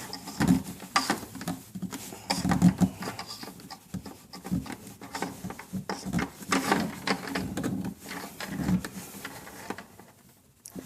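Irregular handling noise, rubbing and light knocks, as a beer line hose is worked onto the barbed back end of a kegerator's faucet shank.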